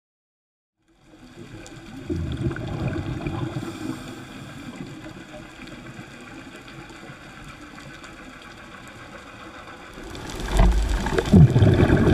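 Underwater sound through a camera housing: a scuba diver's regulator breathing and bubbling exhalations over a steady rush of water. It starts about a second in, is busiest for a couple of seconds after that, and grows louder near the end with a few low thumps.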